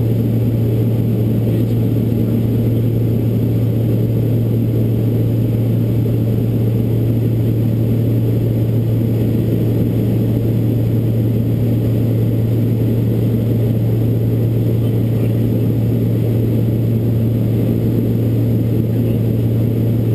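Twin Pratt & Whitney PT6A turboprop engines and propellers of a Beech 1900D in flight, heard from inside the cockpit as a loud, steady low drone and hum that holds an even pitch and level throughout.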